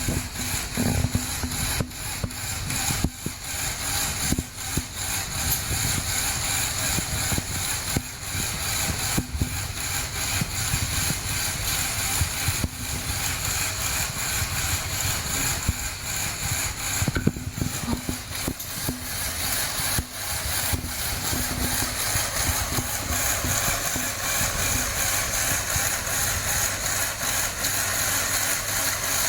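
The Lego Technic Mercedes-Benz Arocs model's small electric motor running steadily, driving the model's functions.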